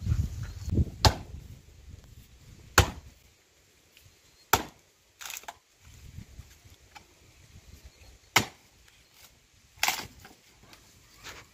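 Firewood being chopped on the ground with a long-handled tool: about six sharp woody strikes, irregularly spaced one to three seconds apart.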